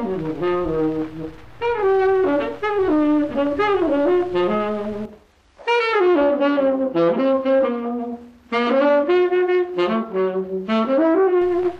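Solo saxophone playing from an old analog tape recording. For about the first five seconds it is the unrestored version, with a steady low hum and noise under the melody. After a brief gap it plays back restored, with the hum and noise gone, and near the end the hum returns as the unrestored version plays again.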